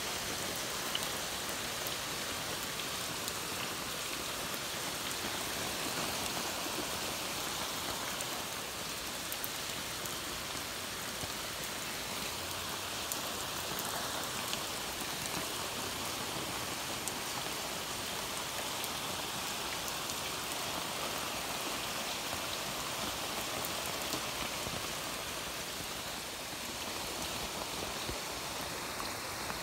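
Heavy rain falling steadily, a constant even hiss with a few faint ticks of drops scattered through it.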